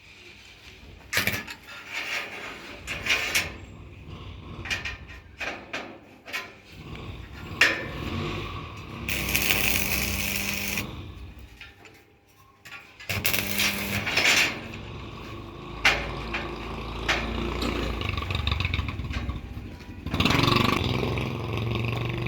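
Metalworking on steel parts: irregular knocks and clicks of tools and metal, with longer stretches of scraping noise about nine seconds in and again about thirteen seconds in.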